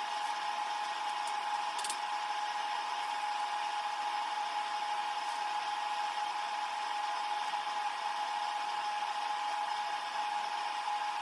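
Steady machine whir with a constant hum-like tone running unchanged throughout.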